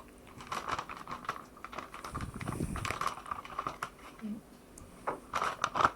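Handling sounds of a Fairy dishwasher tablet being split on a small plate: crinkling of its plastic wrapper with scattered light clicks and taps, busiest around the middle and with a few sharper clicks near the end.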